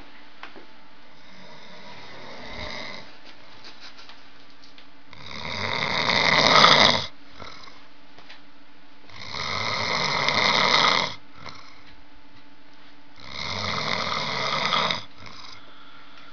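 Loud snoring: a faint snore about two seconds in, then three loud rasping snores about four seconds apart, each lasting about two seconds.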